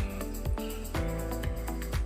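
Background music with a steady electronic beat, a kick drum about twice a second.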